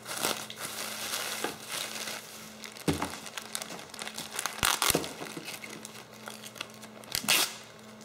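Bubble wrap and a clear plastic bag crinkling and rustling as they are unwrapped and handled, with louder crackles about three, five and seven seconds in.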